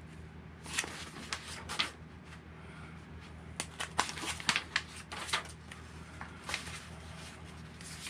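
Pages of a printed paper instruction manual being turned and handled by hand: a run of crisp, irregular rustles, busiest around four to five seconds in, over a faint steady low hum.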